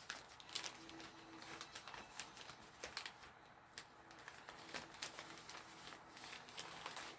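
Faint rustling and crinkling of a plastic packaging bag being handled, with scattered small crackles throughout.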